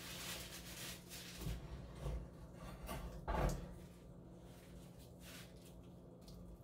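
Kitchen handling sounds as a cast-iron skillet is picked up and moved: a few light knocks and a heavier thump about three and a half seconds in, over a steady low hum.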